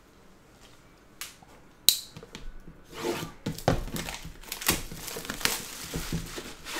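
Clear plastic shrink-wrap being torn open and peeled off a trading-card box, crackling and crinkling. A sharp click comes about two seconds in, and the crinkling starts about a second later and keeps going.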